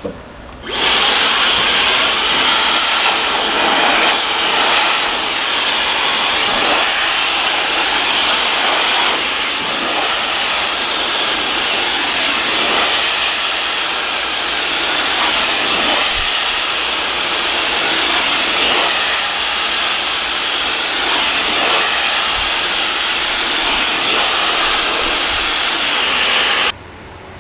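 Dyson Supersonic hair dryer blowing, switched on about a second in and off just before the end. The steady rush of air wavers only slightly in level.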